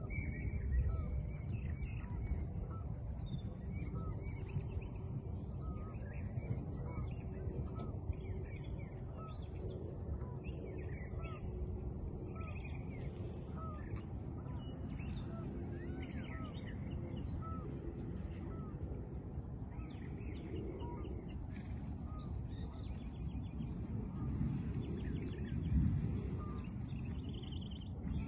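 Assorted birds chirping and calling, many short high chirps scattered throughout, over a steady low rumble.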